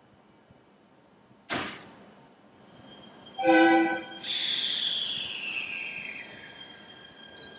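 Electric local train departing: a brief sharp hiss about a second and a half in, then a short horn blast of about half a second, the loudest sound, followed by the motors whining with a pitch that glides downward as the train pulls past with steady rail running noise.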